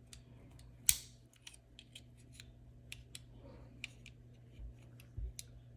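Small spring-loaded scissors of a Leatherman Surge multi-tool snapping open and shut, a run of light metallic clicks and snips at an uneven pace, the sharpest about a second in. This is the scissor spring action working again after the repair.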